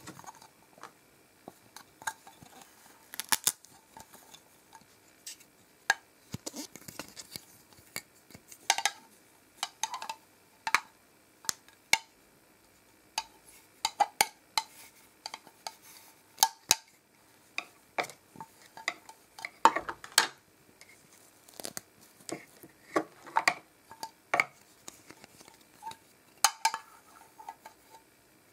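Hard plastic play-kitchen pieces, a toy frying pan, spatula and tray, tapping and clattering against each other as they are handled: many short, irregular clicks and knocks.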